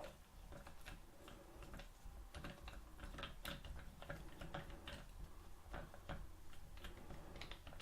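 Faint, irregular small clicks and taps of hard plastic parts being handled and fitted together: pieces of a camera mount's extension arm worked by hand.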